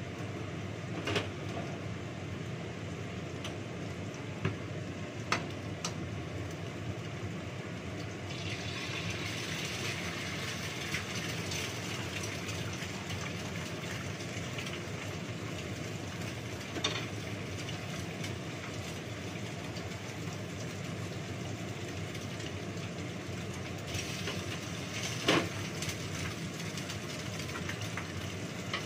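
Oil sizzling in a frying pan over the steady hum of a kitchen exhaust fan, the sizzle growing louder about eight seconds in. A few sharp clinks of utensils or dishes.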